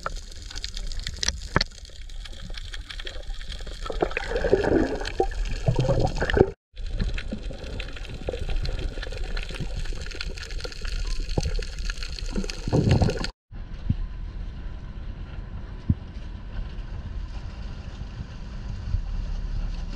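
Underwater action-camera sound: water sloshing and bubbling around a swimmer, with a few louder bubbling spells and clicks. Near the end, after a cut, a steady low rumble comes in.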